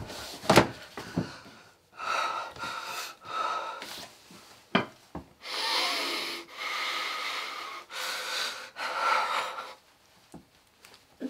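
A man's heavy, ragged breathing: a run of long, harsh breaths and short gasps, with a few short knocks in the first second.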